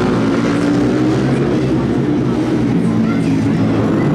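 Small four-stroke engines of mini shifter ATVs racing, running steadily at speed.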